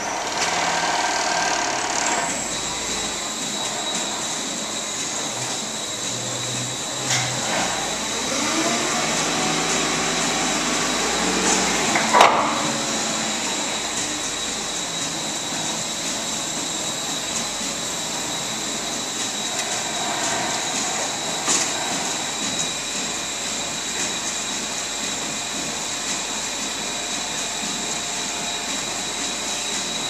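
A forklift runs as it raises and tips a plastic harvest bin of grapes over a stainless-steel receiving hopper, against steady machinery noise. A high steady whine sets in about two seconds in, and there is one sharp knock about twelve seconds in.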